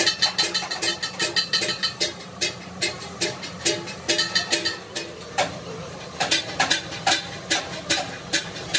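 Background music with a quick, steady beat and a short repeating melody, over a steady low hum.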